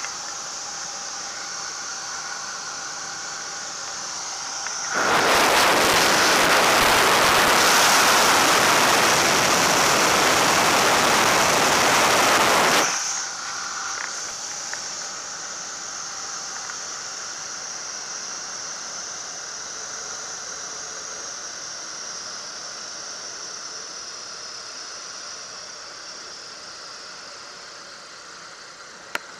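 Marquart Charger biplane's engine and propeller running with a steady hum and whine over wind hiss in the open cockpit, low over the field on a landing approach. Between about 5 and 13 seconds a much louder wind rush drowns it out, then stops suddenly. Afterwards the sound fades gradually, and there is a single click near the end.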